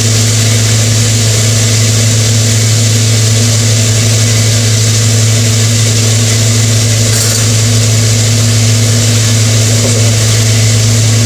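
Gas wok burners running under woks of chicken deep-frying in oil: a steady, loud low hum with an even sizzling hiss over it.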